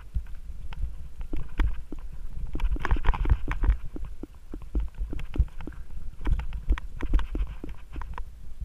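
Mountain bike rattling down a bumpy dirt singletrack: irregular knocks and clatter from the bike and its camera mount over a steady low rumble of tyres on the ground, busiest in two rough stretches.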